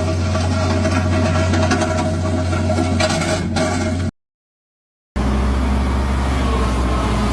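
A large engine or motor running steadily with a deep hum. The sound cuts out completely for about a second a little past the middle, then a different steady engine sound picks up.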